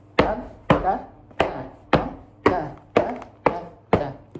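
Heavy leather boots stamping on a hard floor in an even rhythm as a Chuvash folk-dance step is danced: about eight sharp stamps, roughly two a second, the last one lighter near the end.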